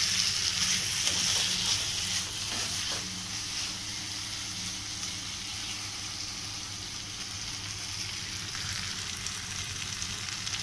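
Thick orange-peel and tamarind pachadi sizzling in oil in a kadai, stirred and scraped with a slotted metal spatula, the stirring busier in the first couple of seconds. It is cooked down to the point where the oil separates out, the sign that the pachadi is done.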